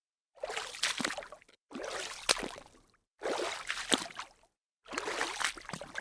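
Small splashes of a hand slapping and stirring water, in four separate bouts of about a second each with silence between them. Each bout holds a few sharp splashes followed by sloshing.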